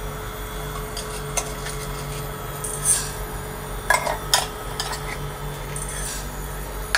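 Black and white peppercorns dropped by hand into a dry non-stick frying pan to be toasted: scattered small clicks and rattles as they land, with a cluster of louder clicks about four seconds in. A steady low hum runs underneath.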